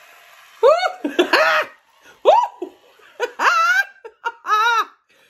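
A woman laughing in about five separate bursts, each one swooping up and down in pitch.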